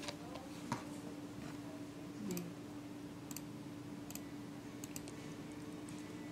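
Scattered single clicks of a computer mouse, with one louder tap just under a second in as a smartphone is laid down on the desk, over a steady low hum.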